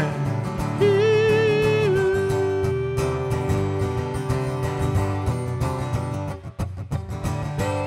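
Solo acoustic guitar strummed steadily, with a male voice holding one long note that wavers at first and then holds steady. The playing drops away briefly near the end before a new note comes in.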